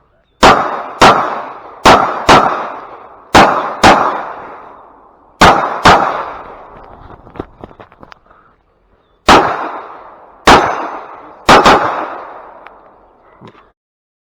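Glock 45 9 mm pistol firing about a dozen shots, mostly in quick pairs, each shot ringing out briefly. There is a pause of about three seconds in the middle with only faint clicks.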